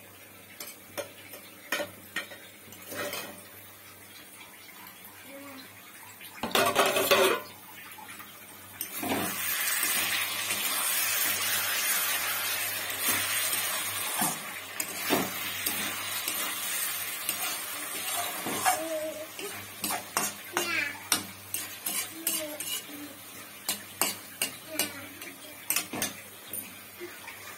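Metal spatula clinking against an aluminium kadai, with a loud metal clatter about a quarter of the way in. Then the paneer and sauce sizzle steadily in the hot kadai while the spatula scrapes and taps through the stirring.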